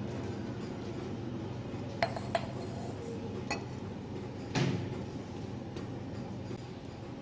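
Steady low background hum, with two quick light clicks about two seconds in, a fainter click a second later, and a louder knock a little past halfway, like hard objects being handled on a bench.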